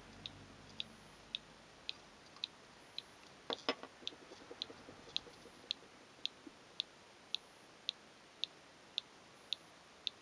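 Motorcycle disc lock giving off its abnormal noise: a faint, high-pitched tick repeating evenly about twice a second. About three and a half seconds in there is a brief clatter of louder clicks and rattling.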